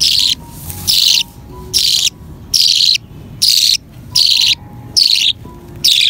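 A hand-fed budgerigar chick giving a run of short, loud, rasping begging calls, a little faster than one a second, while being fed from a syringe.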